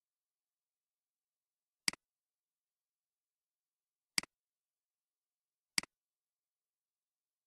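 Three computer mouse clicks, each a quick pair of ticks from the button being pressed and released, with silence between them.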